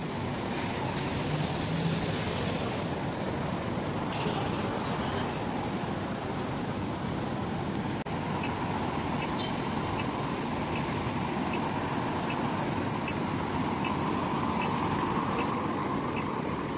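Steady city traffic noise: the rush of cars passing on the road.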